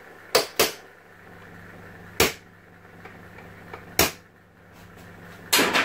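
A hammer tapping small pins into a plywood box, six sharp strikes: two close together near the start, single blows about two and four seconds in, and a quick double strike near the end.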